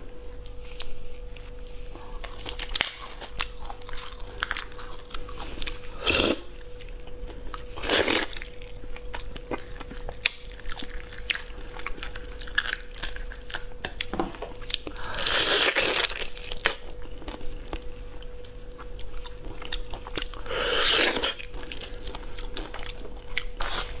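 Close-miked crackling, snapping and tearing of a large brine-marinated prawn's shell being peeled apart by hand. Scattered clicks, a few louder crunches, and two longer rasping crunches in the second half, over a faint steady hum.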